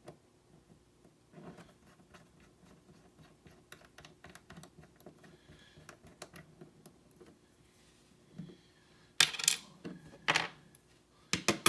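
Small metal clicks and clinks of a picked lock being handled and taken apart on a hard surface, with a few louder metal clanks near the end.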